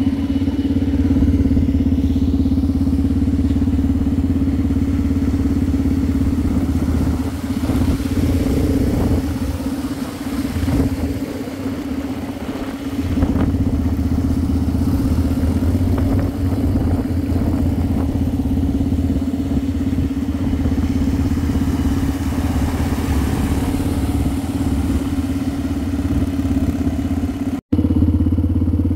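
Motor vehicle engine running with a steady drone, its note softening for a few seconds about ten seconds in. The sound drops out for an instant near the end.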